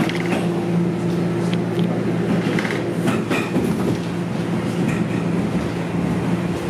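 Toronto Rocket subway train running, heard from inside the car: a steady motor hum over the rumble of the wheels on the rails, with a few short clicks around the middle.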